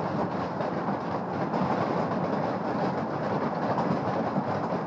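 Large hailstones pelting down in a dense, steady clatter during a heavy hailstorm.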